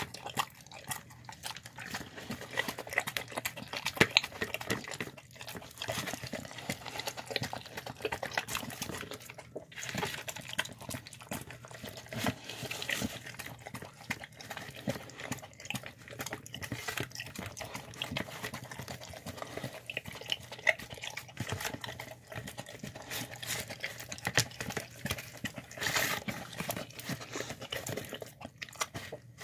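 Dogs eating wet slop from a plastic tub: continuous wet slurping and chewing, with many irregular clicks of teeth and muzzle knocking on the plastic.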